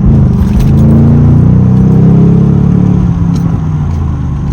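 Tuned Chevrolet Camaro SS V8 engine pulling under throttle while driving, its note rising in pitch, then easing off after about three seconds.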